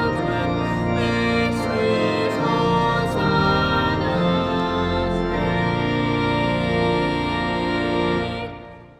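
Organ music playing sustained chords, ending on a long held chord that fades away near the end.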